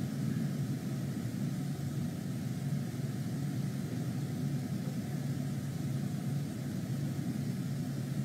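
Steady low rumble with a faint hum and hiss: unchanging outdoor background noise with no speech.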